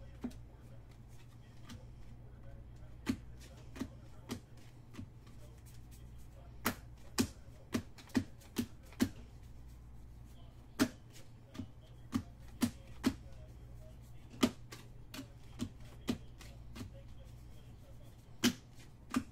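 Trading cards being flipped through and set down one by one, making sharp, irregular clicks and snaps about one or two a second, over a low steady hum.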